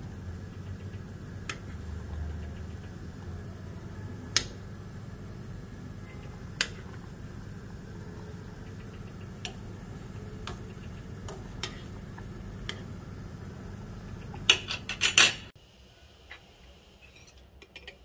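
A metal spoon clinking against a stainless steel saucepan as soup is stirred, single sharp clinks every second or two over a steady low hum. About fifteen seconds in comes a quick run of louder clinks, then the sound drops suddenly to a much quieter background.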